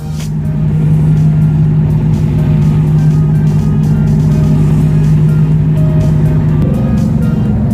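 Marine diesel engine running steadily at close range, its pitch stepping up about six and a half seconds in as it is throttled up, with music underneath.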